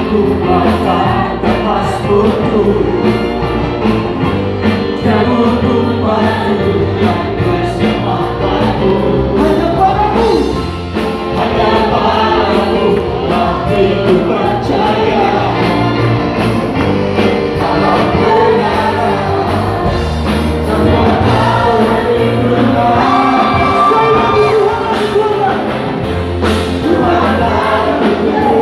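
Live praise-and-worship music: a church band with guitar and drums playing at a steady beat while the worship leaders and congregation sing together.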